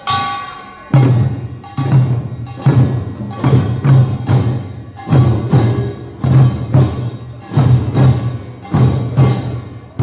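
Korean nongak farmers' percussion band playing: heavy drum strokes in an uneven, driving rhythm, with metal gongs ringing over them. A sustained gong ring fades out in the first second, just before the drumming comes in.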